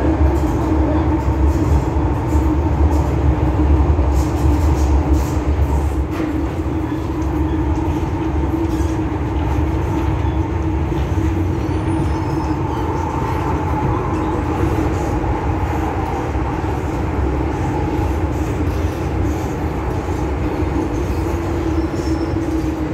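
Cabin noise of an MTR M-Train electric multiple unit under way: a steady rumble of wheels on rail with a constant hum underneath. The deep rumble eases a little after about six seconds.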